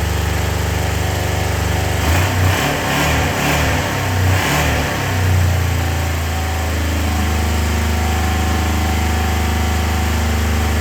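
Motorcycle engine idling, revved a few times between about two and five and a half seconds in, then settling back to a steady idle. It runs tip top after its stripped spark plug hole was repaired with a thread insert.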